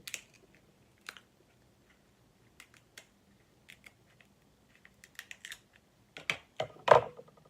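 King crab leg shells being cut and cracked open: a run of short, sharp clicks and snaps at uneven intervals, coming thicker towards the end, with one loud crack near the end.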